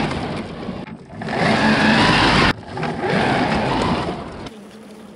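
3D-printed 1:10 scale RC KamAZ 6350 8x8 truck with a 4068-size brushless motor making hard full-throttle starts on snow: the motor and plastic drivetrain whine up in three surges while the tyres churn snow. The second surge cuts off suddenly and the sound dies down near the end.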